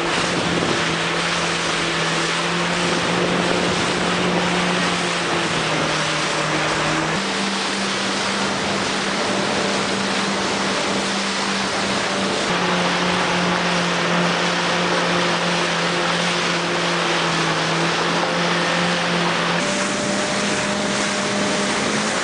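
Small motorboat under way: its engine hums steadily, the note stepping up or down a few times as the revs change, over the constant rush of water spray and wind past the hull.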